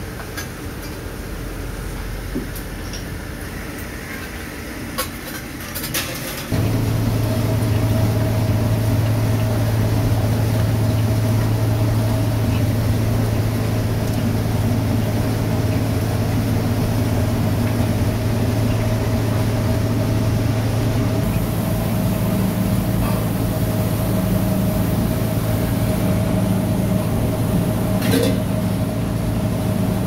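Steady low machine hum with a fainter higher tone above it, starting abruptly about six seconds in. Before it, quieter workshop noise with a few sharp clicks.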